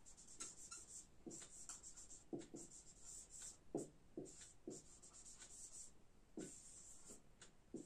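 Marker pen writing on a whiteboard: faint, short, irregular strokes as words are written out.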